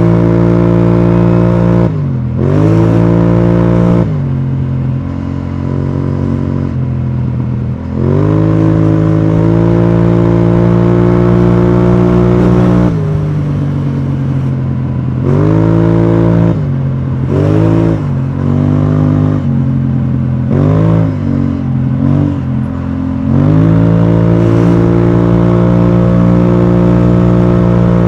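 BMW C650GT maxi-scooter's parallel-twin engine running through an Akrapovic exhaust while riding, a loud steady exhaust note under throttle. Several times the pitch drops as the throttle is rolled off and climbs back as it is opened again, with a longer lower stretch early on and a quick run of short dips and rises in the middle, before it settles into a steady cruise.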